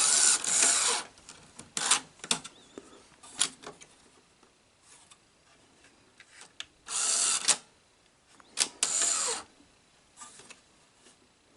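Sony SL-HF600 Betamax VCR's tape-loading mechanism whirring in three short bursts of about a second each, with scattered clicks between them, as it tries to load and eject; the repairer suspects a faulty solenoid.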